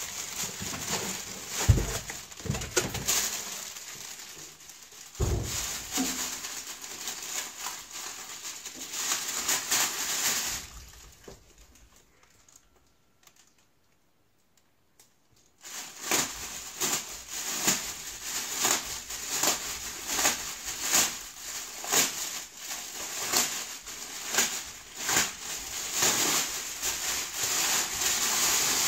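Plastic wrapping bag crinkling and rustling as it is pulled and cut off a boxed welder, with two dull knocks in the first few seconds. About halfway through, it stops for a few seconds of near silence, then resumes.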